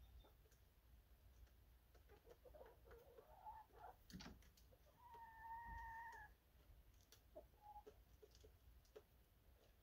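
Hens clucking softly, with one drawn-out, steady call lasting a little over a second about five seconds in.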